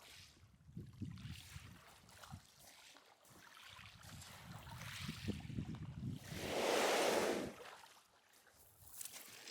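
Water rushing and splashing around a sea kayak as it is paddled, with a low wind rumble on the microphone. A louder rush of water comes about seven seconds in.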